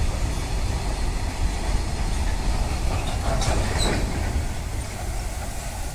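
Freight train of covered goods wagons rolling past, a steady low rumble of wheels on rail. A brief faint squeal about four seconds in.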